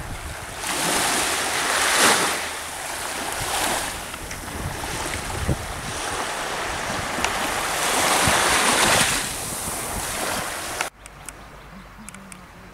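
Small waves washing onto a sandy shore, the rush of water swelling and fading several times, with wind on the microphone. Near the end the sound drops off abruptly to a much quieter background with a few faint clicks.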